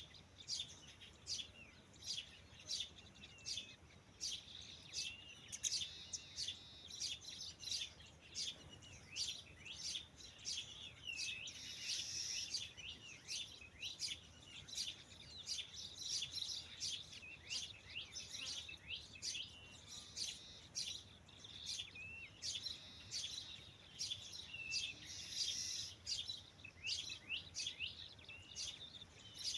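Birds chirping: a dense, irregular run of short high chirps and calls, several birds at once.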